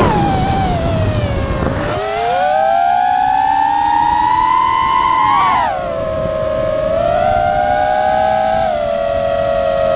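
FPV drone's brushless motors and propellers whining, the pitch sliding with the throttle. It falls over the first two seconds under a rush of air, climbs again, then drops sharply about halfway through and holds lower with small steps.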